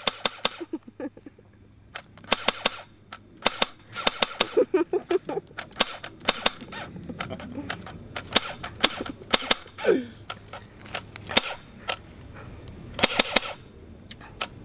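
A gun firing a long string of sharp shots, sometimes several a second in quick runs and sometimes spaced out, with short gaps between bursts.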